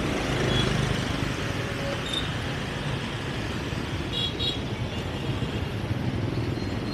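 Steady road traffic, mostly motorbikes and cars passing, with a few short high beeps about four seconds in.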